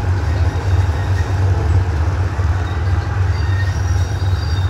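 GE diesel-electric locomotive's engine running with a steady deep rumble as the locomotive moves along the track.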